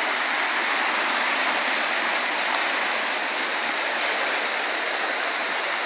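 A steady rush of water from heavy rain on a flooded area, an even hiss with no breaks.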